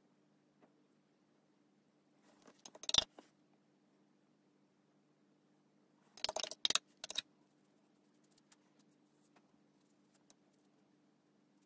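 Paintbrush clinking against a glass water jar as it is rinsed: two short bursts of rapid clinks and rattles about three seconds apart, with a few faint ticks afterwards.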